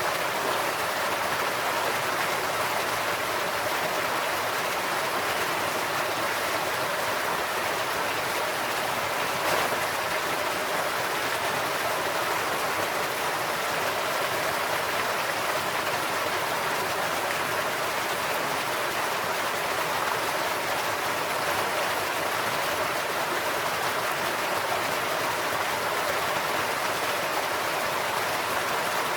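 Stream water pouring over a concrete farm road that crosses it and splashing down off its edge: a steady rushing, splashing wash with no break.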